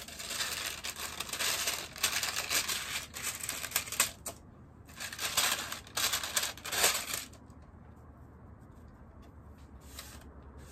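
Parchment paper crinkling and rustling as it is handled with silicone oven gloves, in two stretches of a few seconds with a short break between, stopping about seven seconds in.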